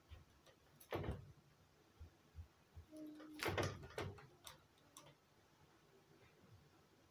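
Pet crow moving about its room out of sight: scattered knocks and clicks, the loudest about one second in and again around three and a half seconds, with a brief soft low note from the crow just before the second cluster.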